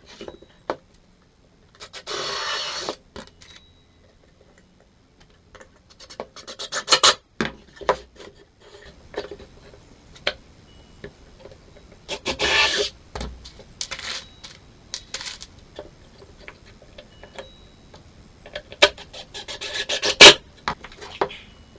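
Scraping and rubbing strokes on wood, in about four short bouts, the last a longer run of strokes growing louder, with small knocks and clicks between them.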